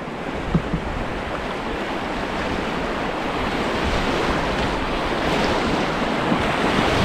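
Rushing whitewater of a flooded creek rapid, growing steadily louder as the canoe runs into the rapid.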